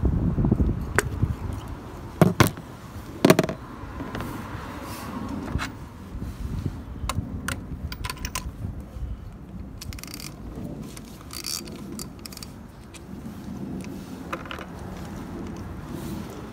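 Metal hand tools clinking and scraping as a spark plug socket and extension are handled and set into a plug well, with a few sharp metallic clicks two to three seconds in. A low wind rumble on the microphone sits under the first second.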